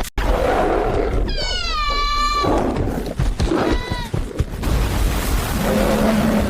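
Animal calls: low, rough growling, with a high, drawn-out cry that falls in pitch about a second in and a shorter cry near four seconds.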